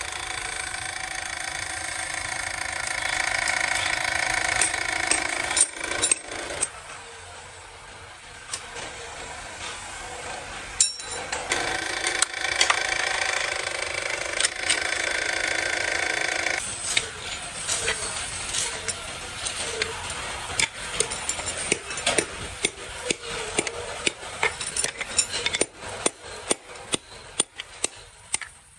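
Workshop machinery: a power tool running with a whine in two spells, then a run of quick clicks and knocks.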